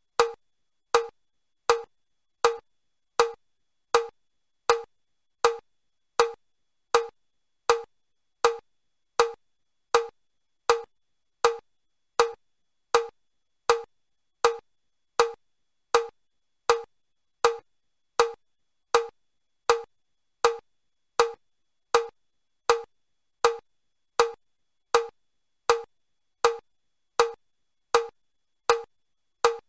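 Metronome ticking steadily, one short woody click about every three-quarters of a second (about 80 beats a minute). This is the beat that paces level 2 of the Chester step test.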